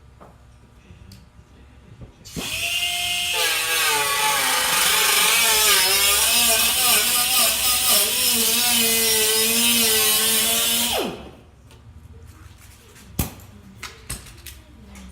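A power cutting tool runs on the car body's sheet metal for about eight seconds. It starts a little over two seconds in, its pitch wavers as it bears on the metal, and it stops near the eleven-second mark. A few light knocks follow.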